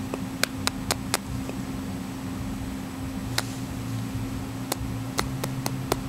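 Quick, sharp kissing clicks between a peach-faced lovebird's beak and its owner's lips, about a dozen, irregularly spaced and bunched near the start and the end, over a steady low hum.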